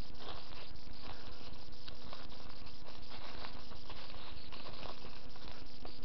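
Rustling and crackling of dry leaf litter and forest undergrowth as someone walks through it: many small irregular clicks over a steady hiss, with a faint steady hum underneath.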